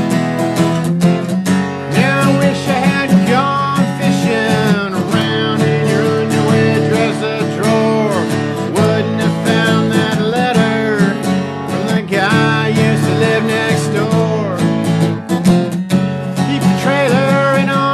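Country band playing live, acoustic guitar strumming steadily under a lead melody line.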